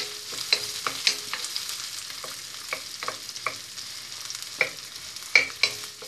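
Chopped onion and garlic sizzling in oil in a wok, with a wooden spoon scraping and knocking against the pan at irregular moments as it is stirred.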